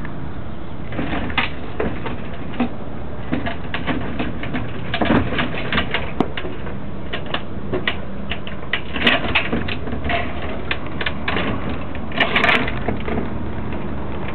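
A cat's claws hooking and scraping on a mesh screen and its plastic sheeting as it climbs: an irregular run of sharp clicks and scratchy rustles, thickest about nine and twelve seconds in, over a steady low background noise.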